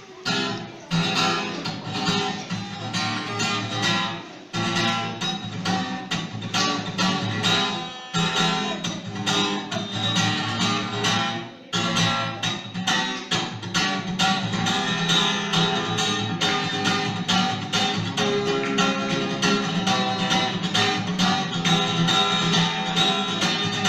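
Guitar strummed in a quick, steady rhythm, with chord changes and a few short breaks, playing the instrumental introduction of a song.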